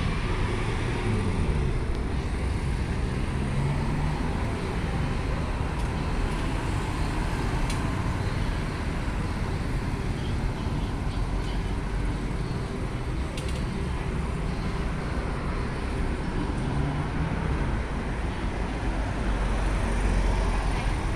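Road traffic: cars and motorbikes passing on a city street, a steady rumble of engines and tyres, with engine pitch rising and falling as vehicles go by.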